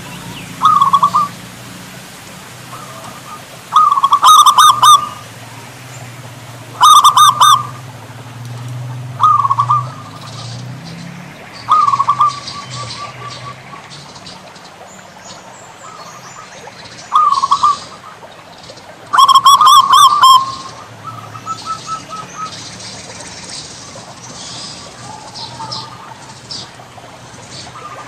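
Zebra dove (perkutut) cooing: short, trilled coo phrases repeated every few seconds, several of them loud.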